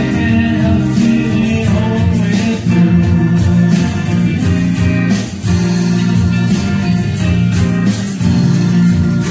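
Live music: a man singing and strumming an acoustic guitar.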